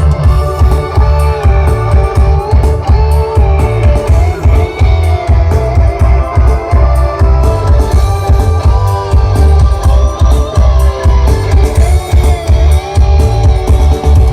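Loud music with a very heavy, continuous bass, played through the AJM Pro Audio sound system of 30 subwoofers at a sound check; a guitar-like melody wavers over the bass.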